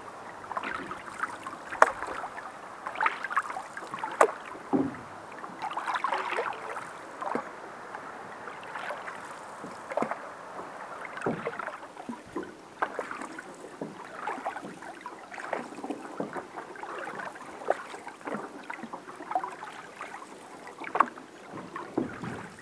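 Canoe paddles dipping and pulling through calm river water, with irregular splashes and drips about every second or so.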